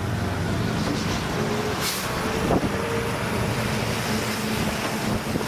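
Steady rumbling road-vehicle noise on the interstate, with a short hiss about two seconds in.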